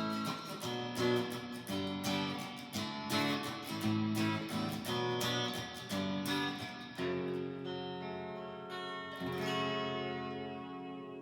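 Fender Player Stratocaster electric guitar with three single-coil pickups, plugged in and played: a run of strummed chords, then a couple of chords left to ring out over the last few seconds.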